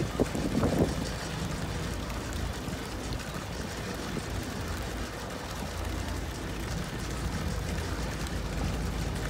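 A boat engine running steadily with a low rumble, with a few brief louder sounds in the first second.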